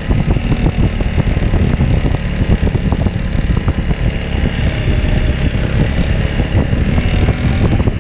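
Motor vehicle engine running steadily, a loud, dense rumble with a faint high whine above it.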